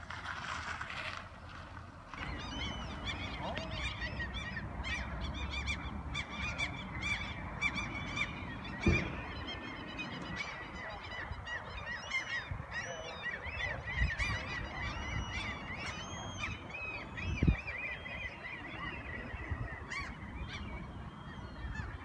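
A flock of birds calling, many short calls overlapping without a break, over a steady low background noise, with a few dull knocks.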